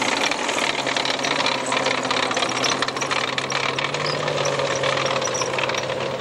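FV432 armoured personnel carrier driving at speed: its Rolls-Royce K60 multi-fuel engine runs with a steady drone under the fast, continuous clatter of its steel track links.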